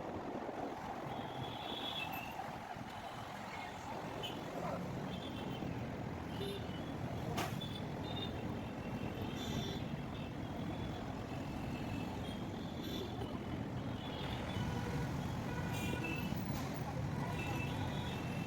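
Road traffic noise: a steady low rumble of passing trucks and other vehicles, with scattered short high-pitched beeps or honks and one sharp click.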